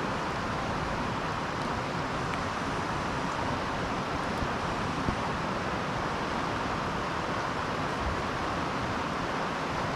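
Steady rushing of a fast-flowing stream, an even noise with no single events in it.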